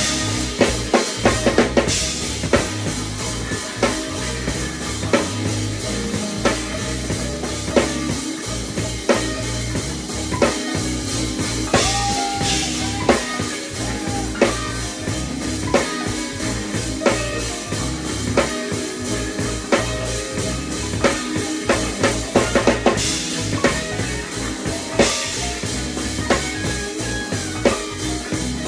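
Live jazz-fusion band playing, the drum kit to the fore: busy kick, snare and rimshot hits over a stepping electric bass line, with cymbal crashes now and then.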